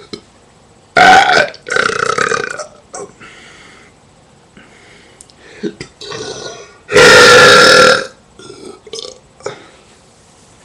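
A person burping loudly several times: two burps close together about a second in, fainter ones after, and the longest and loudest, lasting about a second, around seven seconds in.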